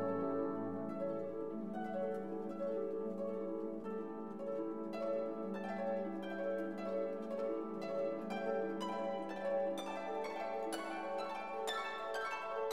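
Background music of plucked strings playing a gentle run of notes. The notes come more often from about the middle on.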